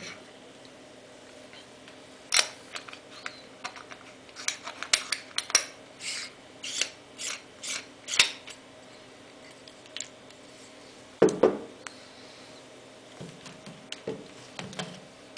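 Metal lens parts clicking and scraping as a Jupiter-21M lens on an M42-to-Nikon adapter is handled and turned on a Nikon D80 body: a quick run of a dozen or so sharp clicks between about two and eight seconds in. About eleven seconds in comes one duller knock on the wooden desk, then a few softer knocks.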